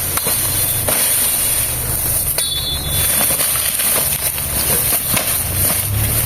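Footsteps crackling through dry leaves and cut palm debris, with wind rumbling on the microphone and a steady high hiss. A short high whistle comes about two and a half seconds in.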